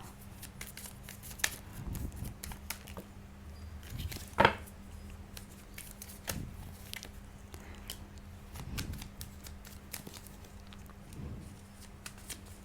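Tarot cards being shuffled and handled: a run of soft, dry clicks and slides, with one louder snap of the cards about four and a half seconds in.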